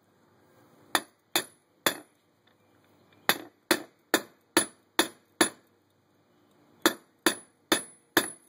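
Hammer striking a steel socket set on a U-joint bearing cap in a Jeep JK Rubicon front axle shaft yoke, driving the cap out. About fourteen sharp metal-on-metal blows in three runs of three, seven and four, several leaving a short high ring.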